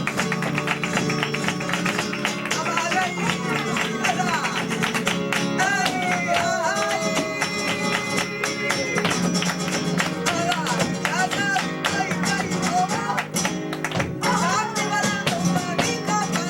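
Live flamenco bulería: guitar with a voice singing in wavering, melismatic lines, over a dense run of sharp percussive strikes.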